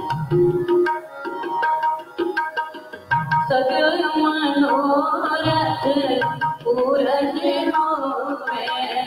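Sikh Gurbani kirtan: a woman singing a hymn over tabla and a steady held harmonium note. The tabla plays on its own for the first three seconds or so, and the voice comes in about three and a half seconds in and carries on until near the end.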